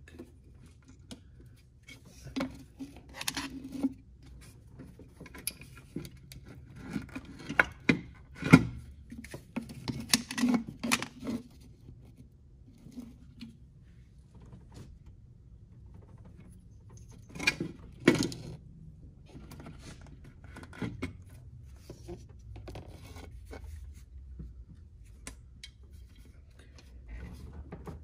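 Hands handling and shifting the plastic upper intake cover on a Cadillac CTS 3.2 V6 engine: scattered knocks, clicks and rubbing of plastic parts, the sharpest knocks about eight seconds in and again around seventeen to eighteen seconds.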